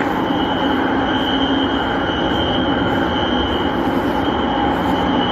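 Building fire alarm sounders going off continuously under test, working: a loud, steady high-pitched tone over a steady rushing rumble.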